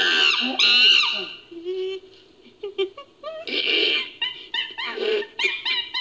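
Chimpanzee screams and calls edited into a creature sound effect. Loud shrieking screams in the first second and a half, then short hoots and squeaks, another burst of screaming about three and a half seconds in, and a run of quick short calls near the end.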